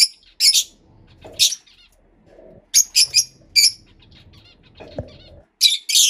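Pet parrots squawking: about ten short, shrill, high calls coming in quick clusters, with softer chatter between them.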